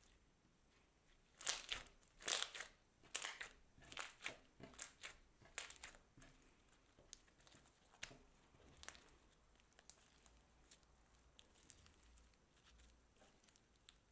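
Glassy slime being squeezed, folded and pulled by hand, making a run of sharp, sticky crackles and pops about two a second, then fainter scattered clicks as it is stretched.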